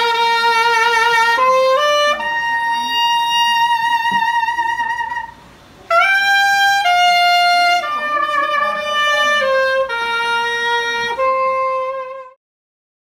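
Saxophone playing a slow melody of long held notes with vibrato, with a short break about five seconds in; the playing stops about a second before the end.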